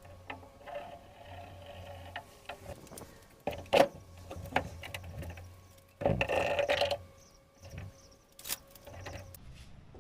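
Irregular clicks and knocks with a brief scraping or rustling burst, over a faint steady hum: mechanical handling sounds.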